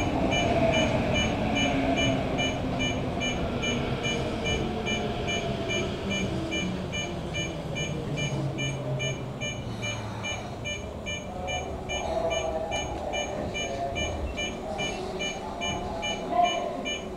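Toyo Rapid Railway 2000 series electric train pulling away from a station and accelerating, heard from the driver's cab: motor tones shift in pitch over the rail and running noise. A faint high beep repeats about twice a second.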